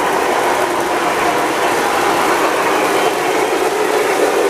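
O scale model freight cars rolling fast over three-rail Atlas O track: a steady clatter and rumble of metal wheels on rail, with a faint hum under it.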